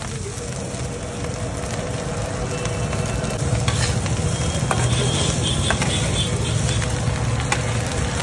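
Fried rice sizzling on a large flat griddle while a metal spatula scrapes, taps and stirs it against the hot surface. A steady low rumble runs underneath and grows a little louder about three seconds in.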